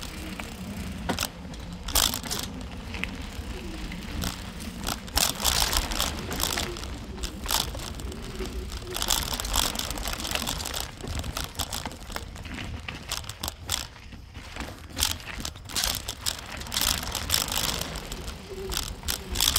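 Mountain bike ridden over a dirt woodland trail: tyres crunching over dirt and debris, with bursts of clattering and rattling from the bike as it goes over bumps, over a steady low rumble.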